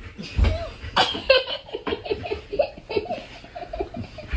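A person laughing in a quick run of short, pitched bursts.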